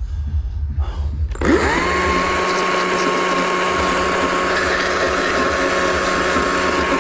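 Chainsaw running up to full speed about a second and a half in, holding a steady high-pitched whine for about six seconds, then dropping off at the very end.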